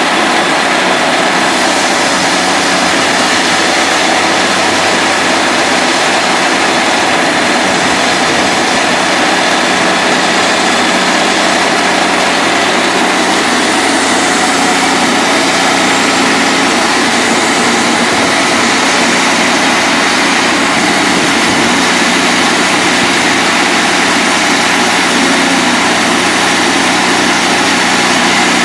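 Hud-Son Oscar 52 portable band sawmill running steadily, its engine driving the band blade as it saws lengthwise through an oak log.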